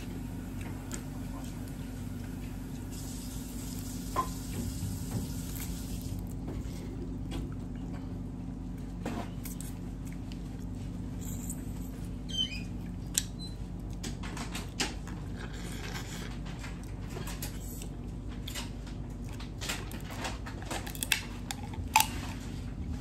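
Crab legs snapped and pulled apart by hand, with scattered sharp shell cracks and soft wet picking and sucking sounds close to the microphone, the loudest snaps near the end. A steady low hum runs underneath.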